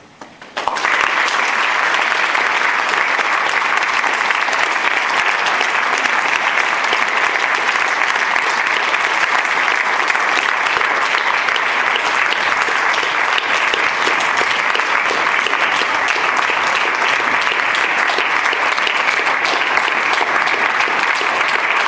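Audience clapping in a hall, breaking out suddenly about half a second in and continuing at a steady level.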